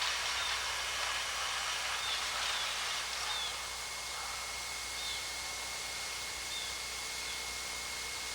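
Steady outdoor background hiss with a few faint, short bird chirps scattered through it.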